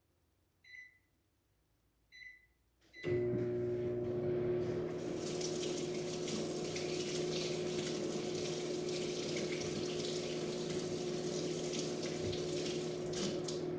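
Microwave oven keypad beeping a few times, then the microwave starting about three seconds in and running with a steady hum and whir, melting down frosting.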